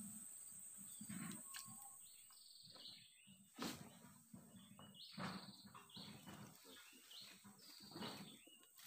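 Faint birds chirping in short repeated calls over a steady high-pitched whine, with one sharp tap about three and a half seconds in.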